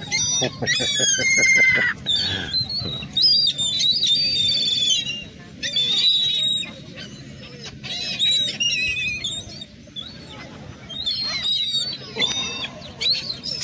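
A flock of gulls calling noisily as they are fed, many short, overlapping squealing calls one after another, over a low steady hum.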